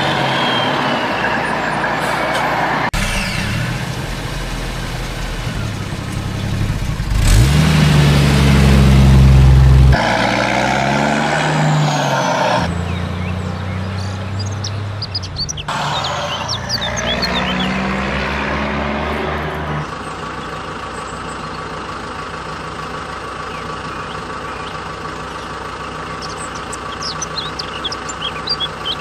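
Truck engine sound effects laid over the footage: engine running and revving in spliced segments that change abruptly every few seconds, with rising pitch about a third of the way in, settling to a steadier hum for the last third.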